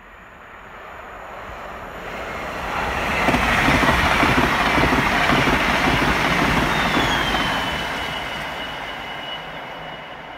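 Allegro electric Pendolino express train passing at speed: a rush of wheel and rail noise with low rumble. It builds to a peak a few seconds in and fades as the train recedes. A thin high whine drops in pitch about two-thirds of the way through.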